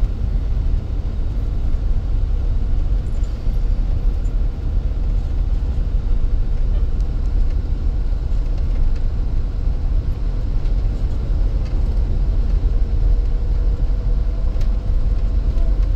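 Riding in a motorbike-drawn tuk-tuk: steady motorbike engine hum with road and wind noise, heavy in the low end.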